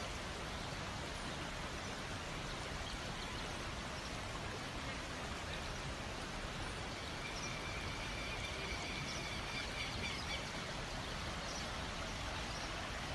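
Swollen river in flood rushing steadily: an even, unbroken roar of water.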